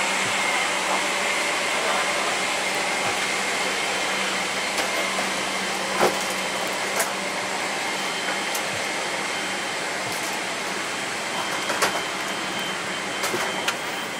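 Steady rushing cabin noise inside a Boeing 777-300ER airliner, with a faint steady hum and a few light clicks, the clearest about six seconds in and again near twelve seconds.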